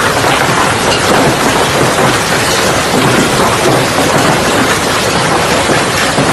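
Hailstorm: hail and heavy rain pelting down. It makes a loud, steady, dense noise of countless small impacts.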